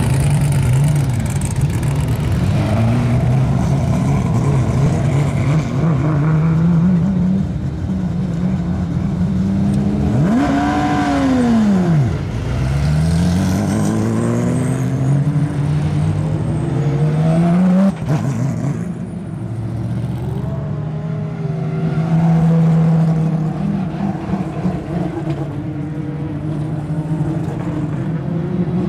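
Several GT race car engines running at once, idling and being blipped as the cars pull away one after another. One engine revs sharply up and back down about ten seconds in, and another note climbs and then cuts off suddenly a little past halfway.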